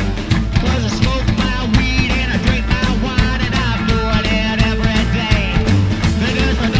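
Loud punk-rock backing music with driving drums, guitar and singing.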